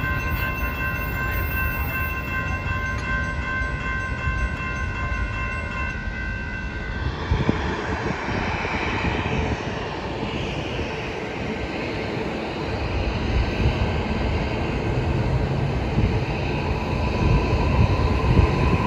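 A passenger train with a steady chord of high tones over a low rumble, cutting off about seven seconds in. Then jet aircraft engine noise that swells and fades, and a light-rail train rumbling past near the end.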